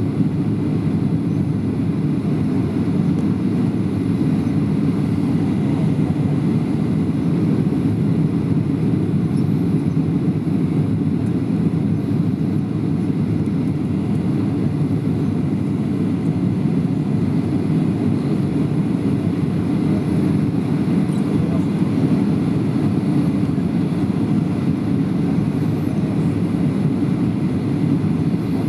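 Steady cabin noise of a Boeing 737-700 on final approach: its CFM56-7B engines and the airflow past the fuselage, heard from inside the cabin as an even, deep roar.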